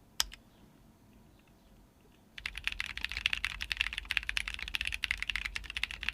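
Typing on a custom Wind X mechanical keyboard with Tecsee Purple Panda switches, a carbon fibre plate and GMK Dracula keycaps: a single keystroke at first, then about two seconds in a fast, continuous run of key clicks.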